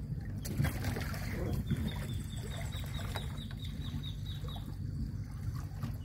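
Gentle water sloshing and lapping against a wooden dock, with a few small splashes. A bird calls in the background, a quick run of about a dozen short, high, falling notes starting about two seconds in.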